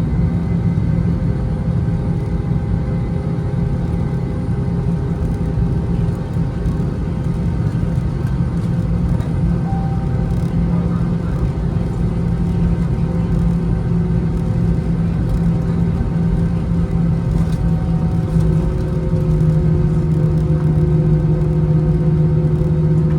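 Airbus A320-200's jet engines heard inside the passenger cabin: a steady rumble and hum with a few held tones, growing a little louder near the end.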